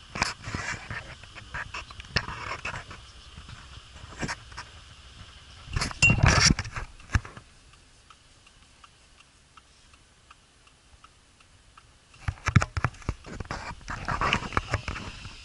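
A dog in the vehicle's cab making sounds, with clicks and rustles of movement. The loudest burst comes about six seconds in, and a quieter stretch follows before the clicking and rustling pick up again near the end.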